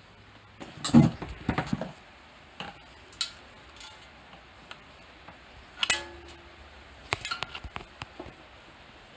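Scattered metallic clinks and knocks of tools and wired parts being handled during a wiring repair: a cluster of clatter about a second in, one sharp knock near six seconds, and a few lighter clinks around seven to eight seconds.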